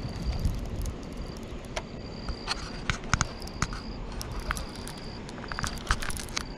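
An insect trilling on one high pitch in short spells, over a steady low rumble, with a few sharp clicks.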